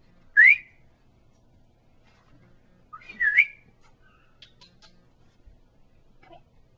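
Two short, loud whistles calling the dog: a quick rising one, then about three seconds later a whistle that dips and rises again.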